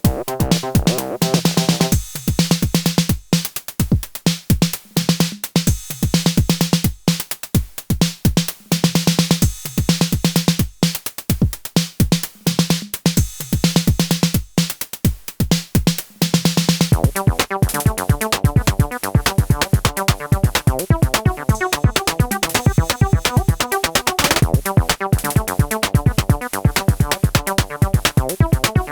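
Electronic acid-techno pattern at 128 bpm from a Moog DFAM, Behringer CAT and Elektron Syntakt: drum-machine percussion with a pulsing synth bass. About halfway through, a busy, fast synth sequence comes in over the drums.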